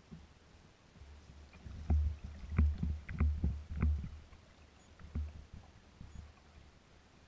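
Small waves slapping against a kayak's hull: a quick run of knocks with low thuds around the middle, then one more about a second later.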